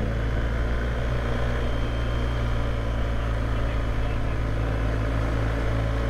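BMW motorcycle engine running steadily while riding along, its low hum even throughout.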